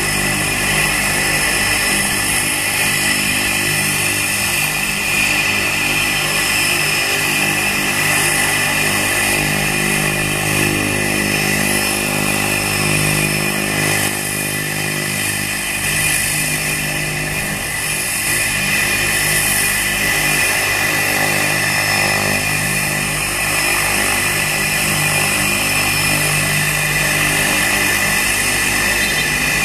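Cessna Caravan's single Pratt & Whitney PT6A turboprop running steadily at low power on the ground, propeller turning, with a steady high turbine whine over the deeper propeller hum.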